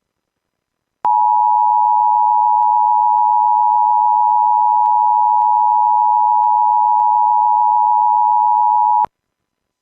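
Emergency Alert System two-tone attention signal (853 and 960 Hz together), a steady loud tone that starts about a second in, holds for about eight seconds and cuts off sharply. It signals that an emergency alert follows, here a child abduction emergency.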